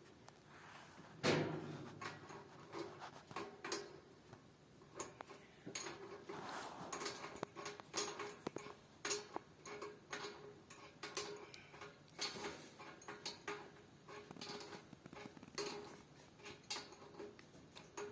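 Irregular clicks and knocks of hands and tools working on a faucet's metal parts, with one louder knock about a second in.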